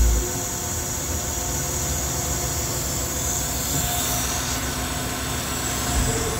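Alternator test bench spinning an automotive alternator at idle rotor speed, about 2100 rpm, while it feeds a load of about 70 amps: a steady machine hum and whine with a hiss over it. There is a low thump at the start and another near the end.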